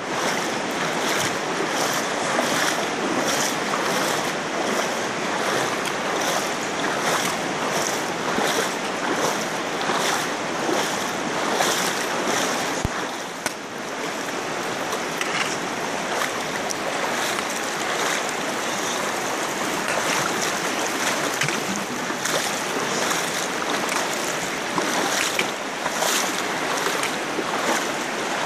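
Shallow river water rushing steadily over rocks, with regular splashes of feet wading through it, about one or two a second.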